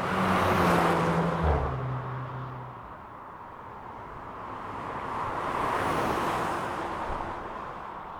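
VW Golf GTI passing by twice. The first pass is louder, and its engine note drops in pitch as the car goes by. The second, about six seconds in, is a softer swell made mostly of tyre and road noise.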